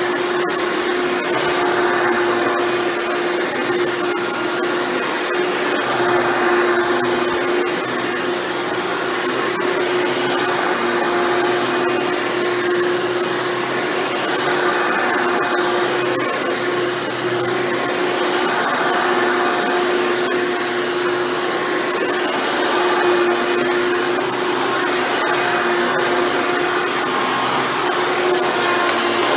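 Hoover Elite upright vacuum cleaner running on carpet, its motor freshly rebuilt with new bearings, giving a steady hum under a whine.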